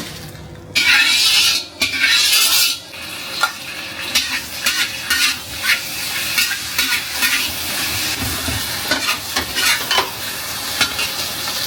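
Food sizzling in a stew pot while it is stirred: two loud hissing spells about a second in, then a steady sizzle with many short clinks and scrapes of a utensil against the pot.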